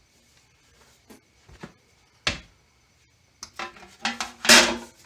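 Tools and small metal parts being handled during assembly: a few light clicks, a sharp knock a little past two seconds in, then a quick run of clinks and knocks with the loudest near the end.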